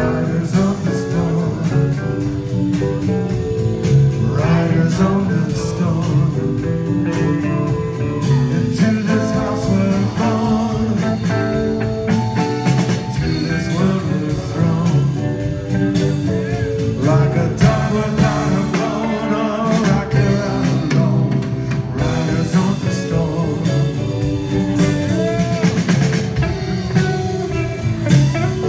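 Live rock band playing with a man singing, backed by keyboards, electric guitar and drums.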